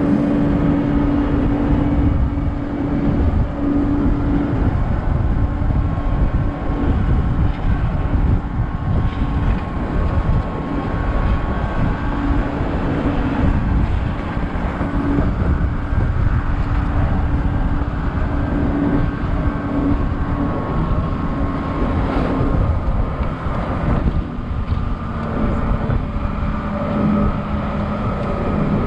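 Open-top bus's diesel engine running steadily under constant wind buffeting on the open upper deck. The engine note drops lower near the end.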